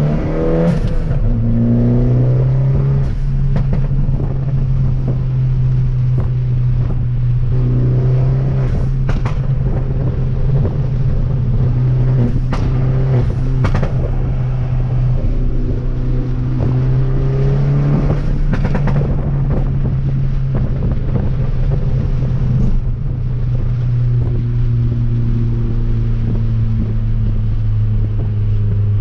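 Fiat Abarth 500's 1.4-litre turbocharged four-cylinder engine running steadily while the car is driven. The revs climb and settle a few times as it pulls through the gears, with a few brief knocks along the way.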